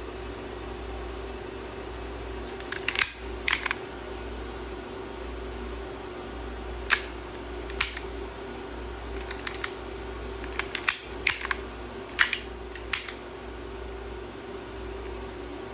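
Hellcat Pro CO2 blowback BB pistol making a dozen or so sharp mechanical clicks and snaps at irregular intervals, some in quick pairs or tight clusters. A steady hum runs underneath.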